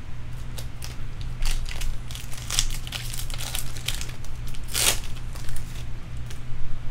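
Foil wrapper of a Bowman Draft Jumbo baseball card pack being torn open and crinkled by hand: an irregular run of crackly rips, the loudest a little before five seconds in. A steady low hum lies underneath.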